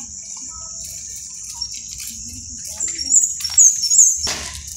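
A steady high-pitched drone with a cluster of shrill chirps about three to four seconds in, from a small animal or bird, over faint distant voices.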